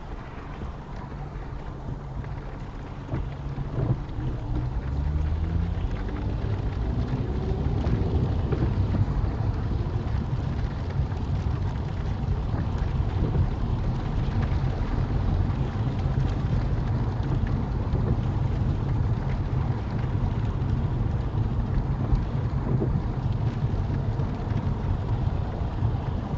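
Small car driving on a wet motorway, heard from inside: a low road rumble with rain hitting the windscreen, and an engine note that rises over several seconds from about three seconds in as the car speeds up and gets louder, then holds steady.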